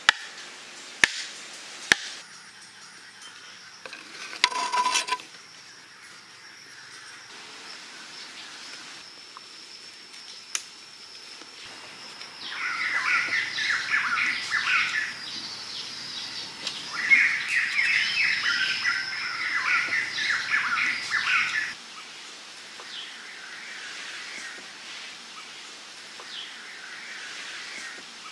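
A wooden club knocks a stake into the ground twice, about a second apart, at the start. After that comes forest ambience: a steady high insect drone, and two long stretches of loud, rapid chattering calls in the middle.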